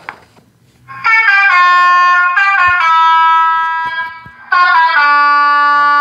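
Electronic telolet (Basuri) bus horn playing its multi-note tune through a small horn speaker: a loud stepping melody starts about a second in, breaks off briefly near the two-thirds point, then starts a second phrase.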